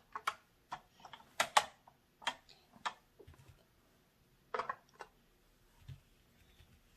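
Plastic toy figures and playset pieces clicking and tapping against each other in a string of sharp, irregular taps, most of them in the first three seconds and two more near five seconds.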